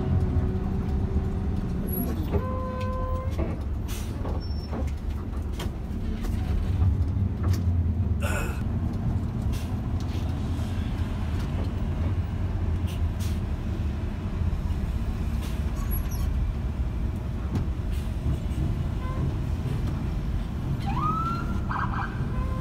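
Steady low rumble of a moving intercity bus heard from inside the cabin: engine and road noise in slow traffic. A brief steady horn-like tone sounds about two seconds in, and a rising tone begins near the end.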